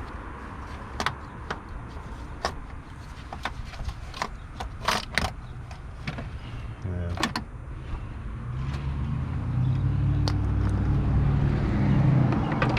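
Scattered sharp clicks and clinks of hand tools on metal parts during starter removal. From about eight seconds in, a low vehicle engine hum grows steadily louder.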